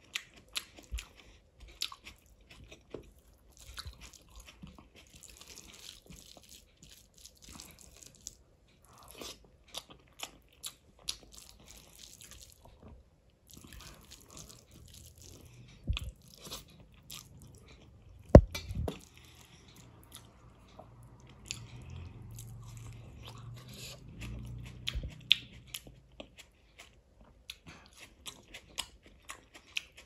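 Close-up chewing and wet mouth sounds of a person eating rice and chole by hand, with many short clicks and one sharp, louder knock partway through.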